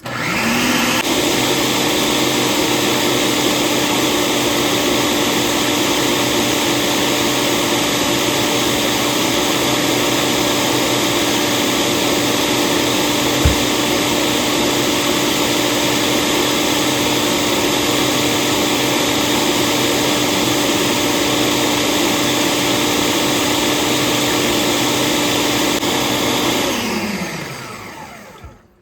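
9-cup Ninja food processor running on its puree setting, whipping cream into butter. The motor spins up at the start, runs with a steady whine, gives a single brief knock about halfway through, and winds down to a stop near the end as its timer shuts it off.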